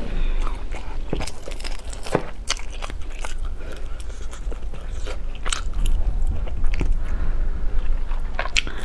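A person biting and chewing food close to a clip-on microphone, with many irregular, sharp crunchy clicks.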